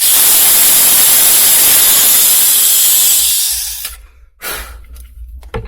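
Cordless drill-driver running a 5 mm bit through the side plates of a quick-release clamp's trigger mechanism, a loud steady hissing grind that stops about three and a half seconds in. A couple of short knocks follow near the end.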